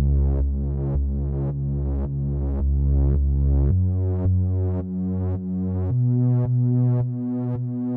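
Background electronic music: a synthesizer note repeating about twice a second over a held bass line that moves to a new note twice.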